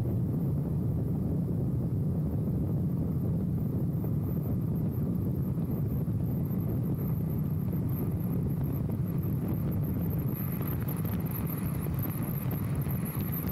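Motorcycle under way at a steady pace: the engine running steadily, mixed with wind rushing over the microphone.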